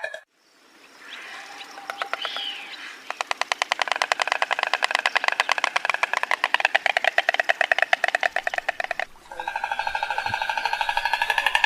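Stork clattering its bill: a fast, dry run of clicks from about three seconds in, stopping about nine seconds in.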